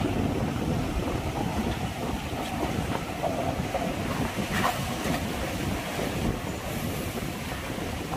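Light cargo truck driving onto a ferry's loading ramp, its engine pulling steadily under load as its tyres roll over the steel grating and ramp plates.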